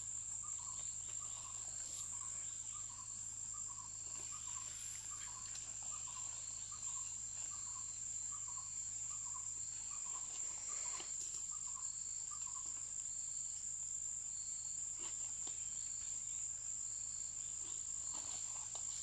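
Insects trilling, one steady high-pitched note that never lets up, with a softer run of short repeated chirps, two or three a second, that fades out about two thirds of the way through. A few brief rustles of large leaves being handled.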